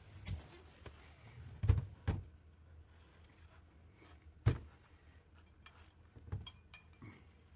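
Knocks and clacks from hand work on a wheelchair wheel and tyre. The loudest pair comes about two seconds in and another near the middle, with lighter ticks and taps between.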